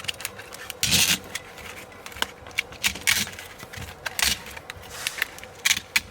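A dull razor blade cutting the spider out of a blown 6.5-inch midrange car speaker: irregular scraping strokes a second or so apart, with small clicks and rattles from handling the speaker.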